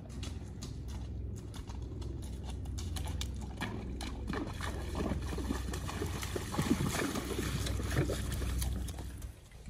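Horse's hooves splashing through shallow creek water as it wades, the splashes getting louder and busier through the second half, over a steady low rumble.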